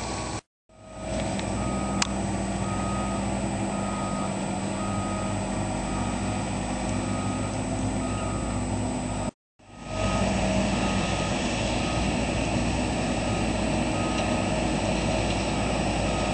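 Excavators at work, their engines running with a steady hum while a backup alarm beeps repeatedly over an even outdoor hiss. The sound cuts out briefly twice, near the start and about nine seconds in.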